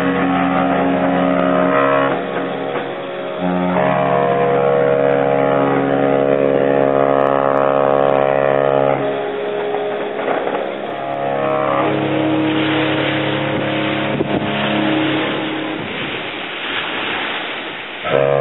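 Cruise ships' horns sounding long, steady blasts, several different pitches overlapping, with blasts stopping and new ones starting a few times. A rushing hiss joins in during the second half.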